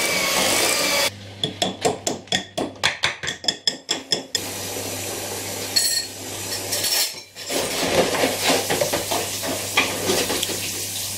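Electric hand mixer beating butter and sugar in a ceramic bowl, its motor whining, then switched off about a second in. A run of quick sharp knocks follows for about three seconds, the beaters tapped against the bowl, then softer handling noise.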